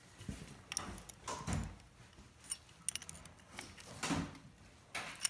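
Light metal clicks and clinks of two wrenches working the tappet adjusting screw and lock nut on a Willys 6-226 Super Hurricane flathead six, loosening the adjuster to widen an exhaust valve clearance that is too tight.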